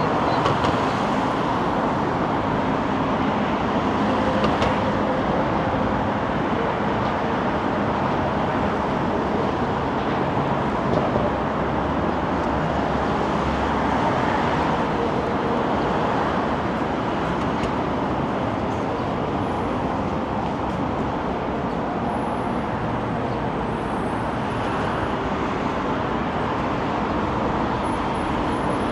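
Steady city road traffic: a continuous rush of passing vehicles with no single event standing out.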